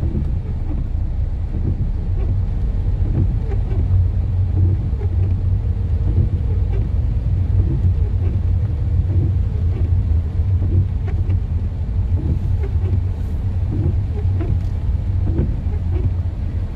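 Steady low rumble of a car driving on a wet road, heard from inside the cabin, with faint scattered taps of rain.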